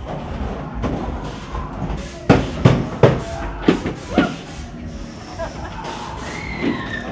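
Haunted-house soundtrack with a low rumble, music and voices, broken about two seconds in by five loud bangs in quick succession.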